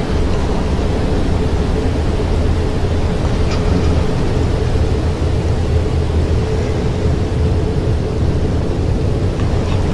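Steady storm ambience: a low rumble under an even hiss of rain, with no clear breaks.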